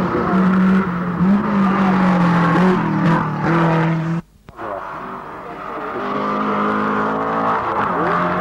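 Rally car engines running hard at high revs as the cars race along a tarmac stage. The sound cuts off abruptly about four seconds in, then a second car's engine grows steadily louder as it approaches.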